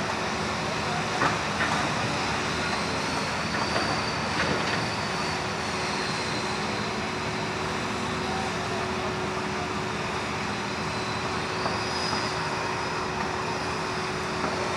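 Heavy construction machinery such as an excavator or bulldozer running steadily with a constant hum, with a few short clanks.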